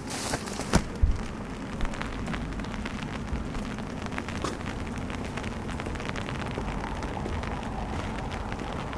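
Rain falling on a wet cobbled street: an even hiss with many small drop ticks, and a few sharp knocks in the first two seconds.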